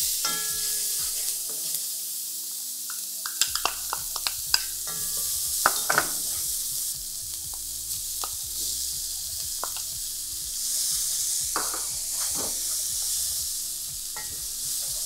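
Diced onion sizzling steadily in hot oil and burnt curry in an aluminium pot, with scattered sharp taps of a wooden spoon stirring against the pot.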